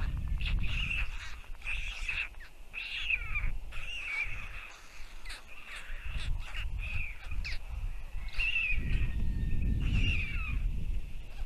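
Short, harsh bird calls repeated about once or twice a second, each falling quickly in pitch, over a low rumble that comes and goes.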